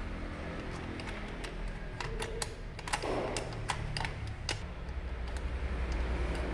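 Small metal parts of a Mercedes 911's Bosch diesel injection pump clicking and tapping as it is taken apart by hand, with many irregular sharp clicks and a short scrape about three seconds in. A steady low hum runs underneath.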